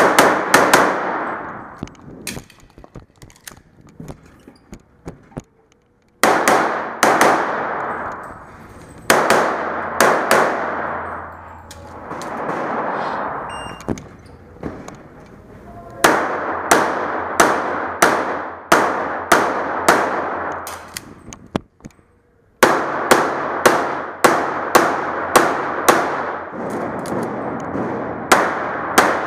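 Strings of rapid .40 S&W pistol shots from a Tanfoglio Limited Custom fired in quick succession, several shots a second, in bursts separated by short pauses as the shooter moves between target positions. Each shot rings out with a reverberant tail off the walls of an indoor range.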